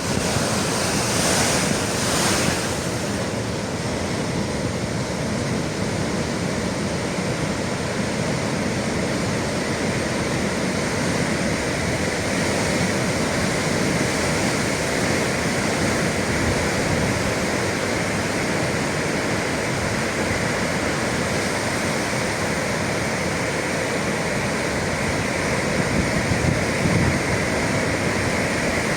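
Sea surf: waves breaking and washing continuously, with a louder crash about two seconds in.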